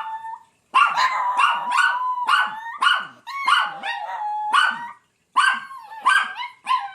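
A toy fox terrier howling along, high and drawn out, the howl broken by quick yips two or three times a second, with short breaks about half a second in and about five seconds in.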